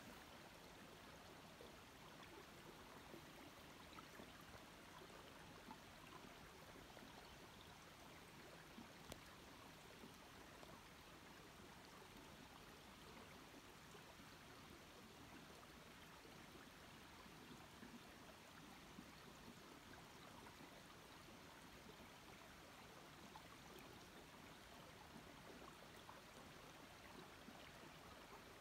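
Faint, steady rush of a running stream, barely above near silence.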